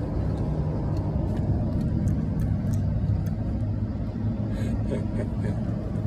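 Open-sided safari vehicle driving along, its motor and tyres making a steady low rumble.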